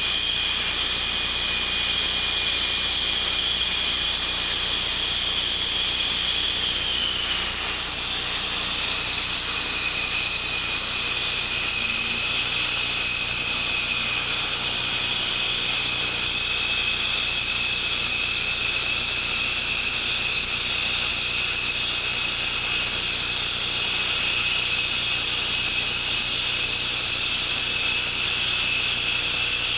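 Steady high-pitched whine and rush of F-15 fighter jet engines running at idle on the ramp. The whine drops in pitch about seven seconds in, then holds steady.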